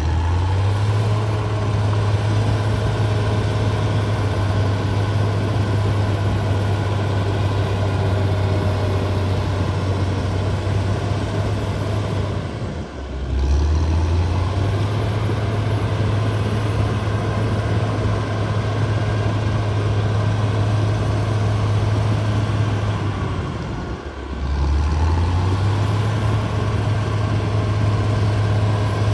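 Diesel engine of a D6R XL crawler bulldozer running steadily with a deep, even hum. It drops off briefly twice, about 13 and 24 seconds in, and climbs back up each time.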